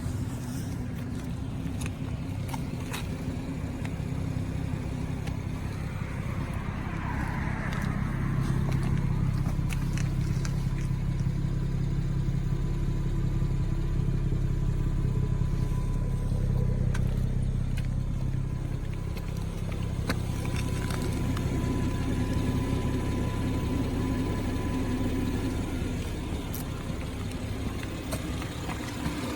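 Cabin noise of a 2017 BMW 340i xDrive (F30) with its turbocharged straight-six running: a steady low drone that swells a little partway through. The low-fuel 'helicopter' thumping from the back seat area is not heard, cured by the SIB 12 20 19 software update.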